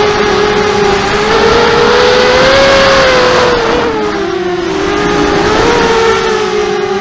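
Mini hexacopter's brushless motors and propellers whining, heard from the craft itself, the pitch climbing and dipping with the throttle, over a steady rushing noise.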